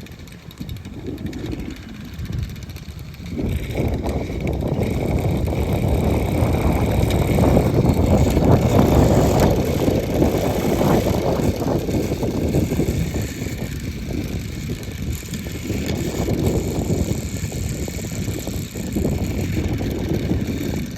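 Strong wind gust rushing and buffeting the microphone. It builds about three to four seconds in, is loudest around eight to ten seconds, then keeps gusting at a slightly lower level.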